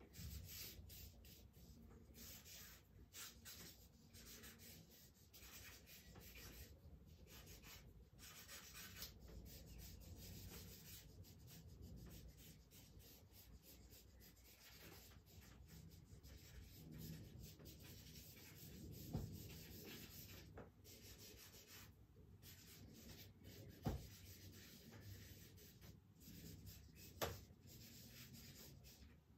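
Charcoal stick scratching faintly across paper in short irregular strokes, with a few soft clicks in the second half.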